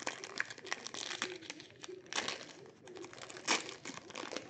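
Trading-card pack wrappers crinkling and tearing as packs are opened by hand, with louder rips about two seconds in and again about three and a half seconds in. A faint low wavering tone runs underneath.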